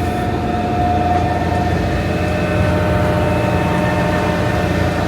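Heavy diesel truck engine running steadily, a low drone with a steady whine over it.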